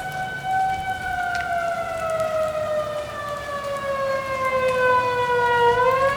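Outdoor tornado warning siren wailing, its pitch sliding slowly down over several seconds, then turning to rise again near the end.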